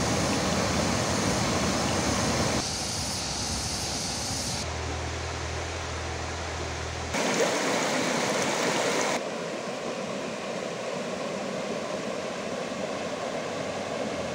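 Shallow stream water running over stones, a steady rushing and babbling. It is made of several clips joined together, so the sound changes abruptly about four times.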